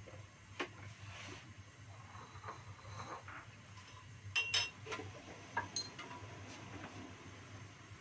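Scattered light metallic clinks and clicks of kitchen cookware, with two sharper ringing clinks in quick succession about halfway through, over a faint steady low hum.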